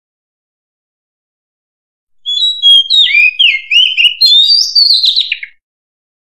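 Oriental magpie-robin singing one phrase of varied, sliding whistled notes that ends in a quick falling run. It starts about two seconds in and stops about a second before the end.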